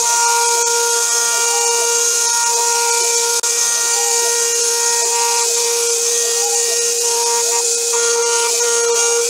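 Homemade CNC milling machine's spindle whining at a steady pitch as a 4 mm end mill cuts the contours of a small metal wheel rim under coolant spray, with a steady hiss above it. A fainter tone rises and falls about once a second as the cutter follows the contour.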